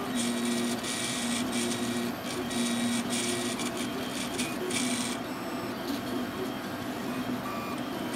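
RepRap Mendel Prusa 3D printer running a print: its stepper motors whine at steady pitches in short stop-start segments as the axes move. Bursts of high hiss come through the first half.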